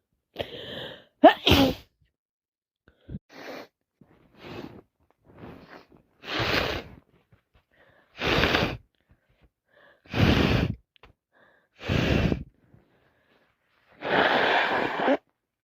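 A woman with a cold sneezing over and over: short sharp bursts about a second and a half in, then five long, loud sneezes roughly every two seconds, with quick breaths between them.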